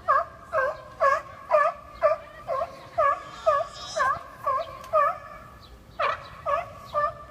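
Seal pup calling over and over, about two short calls a second, each dipping and then rising in pitch, with a brief pause near the end: a hungry pup begging its mother for milk.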